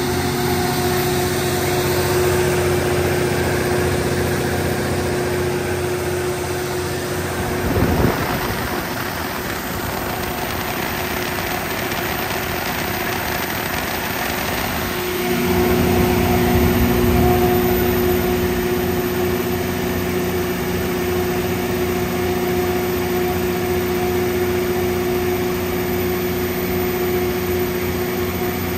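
The John Deere 6068HFG85 six-cylinder diesel engine of an MTU DS180 generator set running steadily at constant speed. A knock sounds about eight seconds in, and the engine's low hum drops for several seconds before coming back louder.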